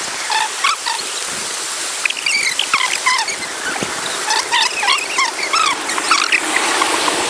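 Steady rush of a river running over rapids, with small birds chirping in short, repeated high calls throughout.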